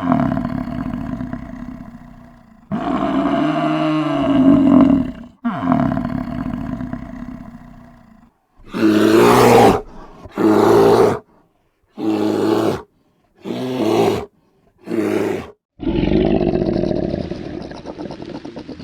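Big cat roaring: three long roars, then a run of five shorter calls about a second each, then another long roar near the end.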